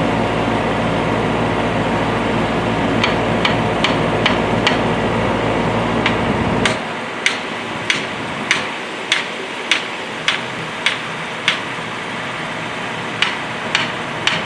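Hammer blows on steel, driving a part back into a Case 580C backhoe's boom cylinder. At first a few scattered strikes sound over the backhoe's engine running. The engine cuts out about seven seconds in, and the strikes then come evenly, nearly two a second, with a short pause near the end.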